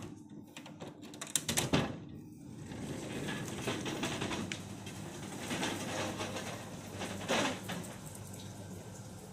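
A few sharp clicks and knocks, then the steady wash of sea water lapping below, swelling every second or two.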